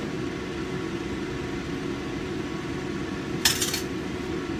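Steady low mechanical hum, like a kitchen fan, with one short sharp clink about three and a half seconds in.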